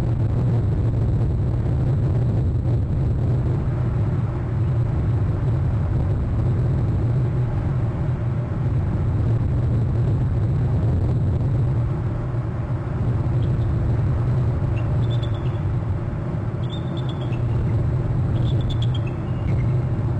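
A steady low rumble throughout. In the last third, a few short, faint, high-pitched bald eagle calls.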